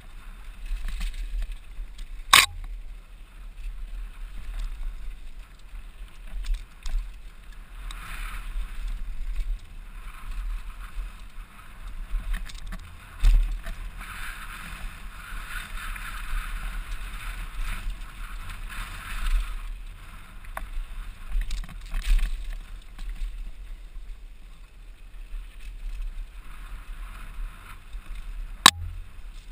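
Wind buffeting an action camera's microphone on a mountain bike ridden fast downhill, over the hiss of tyres on a dry dirt trail. Sharp knocks of the bike hitting bumps come through, the loudest about two seconds in and near the end.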